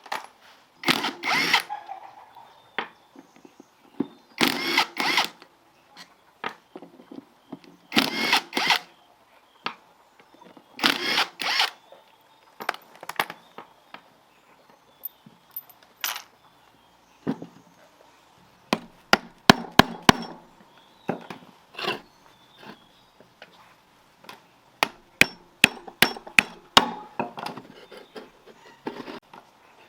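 Workshop tool noise: a tool run in four short double bursts a few seconds apart, followed by a long run of sharp clicks and taps on metal parts.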